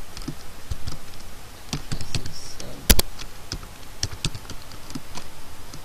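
Typing on a computer keyboard: a run of irregular key clicks, with one louder keystroke about three seconds in.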